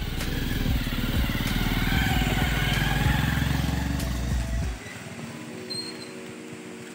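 Off-road vehicle's engine running hard under background music, its sound dropping away sharply nearly five seconds in.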